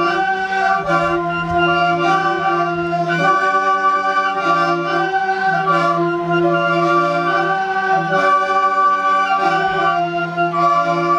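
Music: sustained organ-like chords over a steady low drone, with the upper notes moving slowly.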